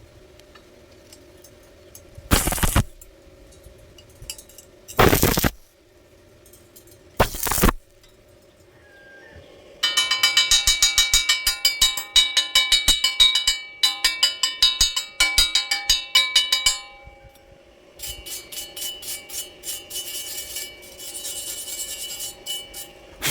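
Three short noisy bursts, then metal struck many times a second in two long runs, each strike ringing at the same pitches, over a steady low hum.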